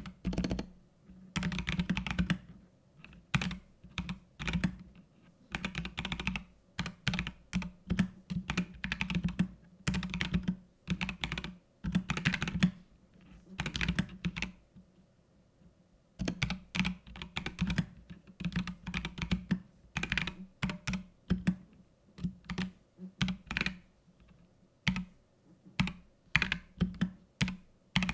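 Mechanical keyboard with Gazzew Boba U4T tactile switches being typed on in bursts: quick runs of low-pitched keystrokes broken by short pauses, the longest about halfway through.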